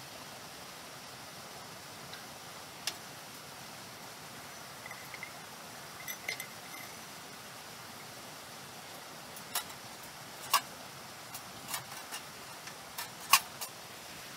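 Short knocks and clinks of cups and metal coffee gear being set down on the wooden shelves of a camp coffee box, a few early on and a quicker string in the second half, the loudest near the end. Under them runs the steady rush of a stream.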